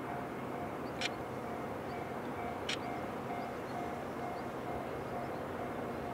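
Steady outdoor background noise of an industrial area, with a faint tone beeping a few times a second and two short sharp sounds about a second and nearly three seconds in.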